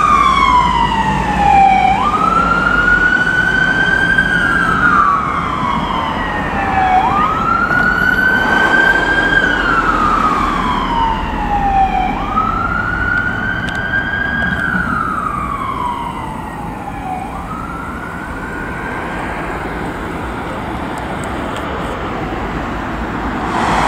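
Fire and rescue vehicle's siren on a slow wail, each cycle rising quickly and falling slowly about every five seconds, fading as the vehicles drive away. It dies out about two-thirds of the way in, leaving steady road traffic noise.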